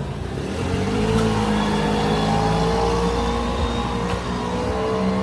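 A motor vehicle's engine running close by, steady, its pitch rising a little and growing louder about a second in.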